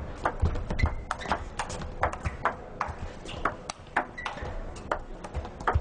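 Table tennis rally: the ball clicking in quick succession off bats and table, a rapid series of sharp knocks, with a few low thuds.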